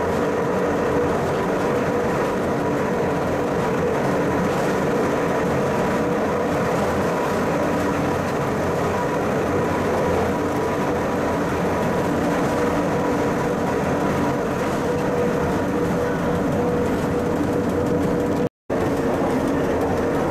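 Pilatus Railway electric rack railcar running on the steep cog track, a steady rumble of running noise with a steady hum through it. The sound cuts out for a moment near the end.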